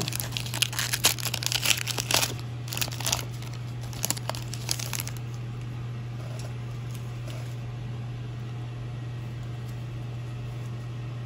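Trading-card pack wrapper crinkling and tearing as it is ripped open and handled, for about the first five seconds; after that only a steady low hum remains.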